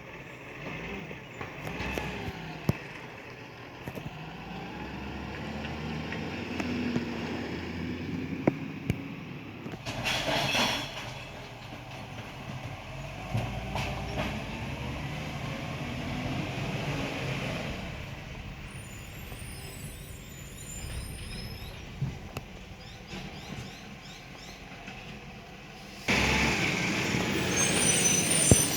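Iveco ACCO garbage truck's diesel engine running, with a short burst of air-brake hiss about ten seconds in. Near the end the sound suddenly gets louder, with sharp knocks.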